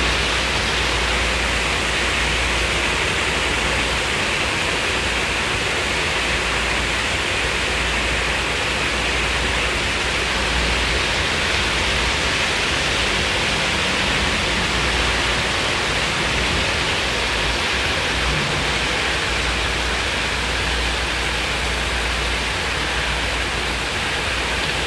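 Steady rain falling, an even unbroken hiss with no thunderclap.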